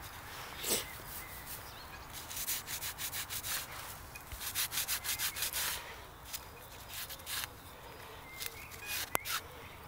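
A brass lighter rubbed back and forth against trouser fabric to clean it. The rubbing comes in two runs of quick strokes, about five a second, each lasting over a second, then a few shorter rubs. A single knock sounds near the start.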